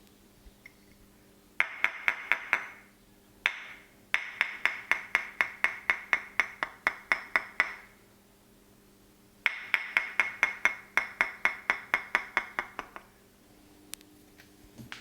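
Quick runs of sharp, bright taps, about five a second: a short run, a single tap, then two longer runs of several seconds each with pauses between.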